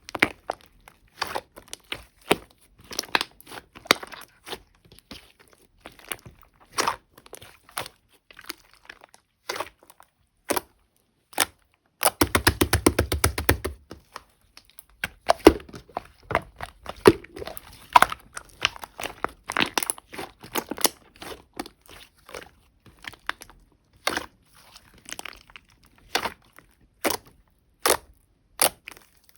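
Glossy chocolate slime with clay mixed in being squished and pressed by hand, making a string of sharp sticky clicks and pops as air pockets burst. About twelve seconds in there is a two-second run of fast crackling pops.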